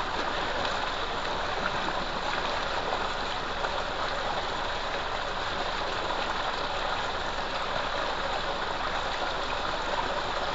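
Thick jet of water gushing steadily from a pipe into a full concrete tank, a constant rushing splash.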